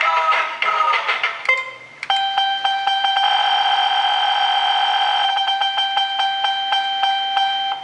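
Electronic game sounds from a fruit-machine slot board's speaker: a short warbling jingle, a brief pause, then a run of evenly spaced beeps over steady chiming tones, with a held warbling tone in the middle, as the lamps chase round the board during a spin.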